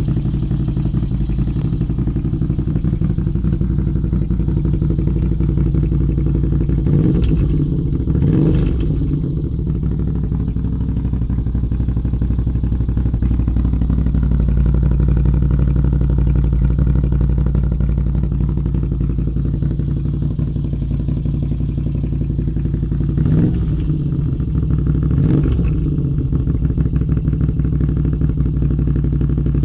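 Moto Guzzi V7's transverse V-twin engine breathing through an Akrapovic exhaust, idling steadily. It takes two short throttle blips about a quarter of the way in and two more about three-quarters of the way through, each rising in pitch and falling back to idle.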